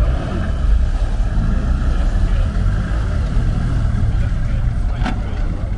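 A fishing boat's diesel engine runs steadily, towing a tall ship. There is a single sharp knock about five seconds in.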